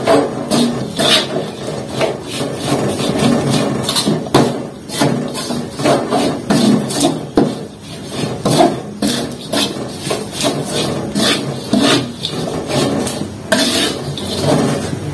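Metal spatula scraping and knocking against a metal wok in irregular strokes while stirring grated coconut as it toasts.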